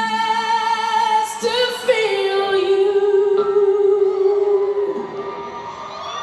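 Live rock concert intro: a woman sings long held notes over a steady sustained tone, sliding up into a note about two seconds in and holding it while it slowly fades.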